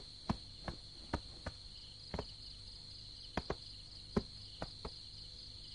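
Crickets chirring steadily, with a dozen or so footsteps as uneven knocks over them.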